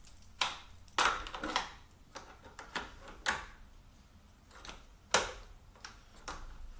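Irregular sharp clicks and knocks, about half a dozen loud ones among smaller taps, of a hand tool working a spring clip off a radiator hose.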